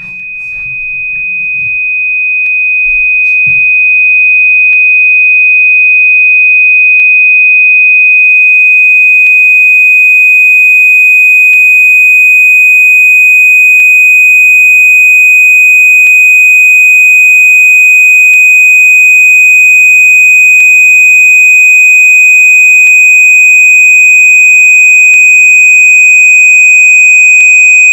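A single loud, steady, high-pitched electronic sine tone at a constant pitch, swelling up over the first few seconds and then held unchanged, with faint ticks about every two seconds.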